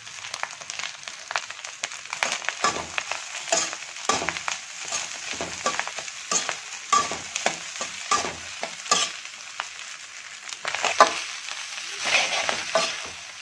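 Chicken fried rice sizzling in a wok over a high flame while a metal spoon stirs it, with repeated irregular scrapes and clinks of the spoon against the pan over a steady frying hiss.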